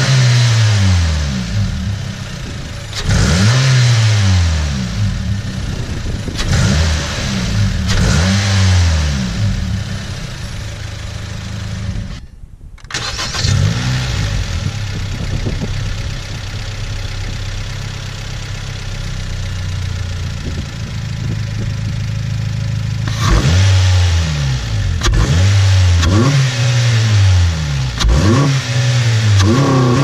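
Honda four-cylinder engine revved in short blips from idle, each rev climbing and then falling back, first breathing through the stock air box. After a short break it idles steadily and is blipped again several times in quick succession, now through an aftermarket cone-filter intake.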